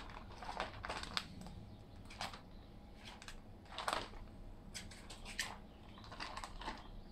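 A hot wet-food ration pouch being shaken by hand to mix its contents, its packaging crinkling in irregular rustles.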